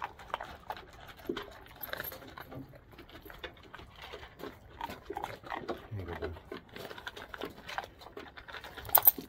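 Two dogs eating dry kibble from a tray: irregular crunching and clicking of chewed and nosed kibble. One sharp clack just before the end is the loudest sound.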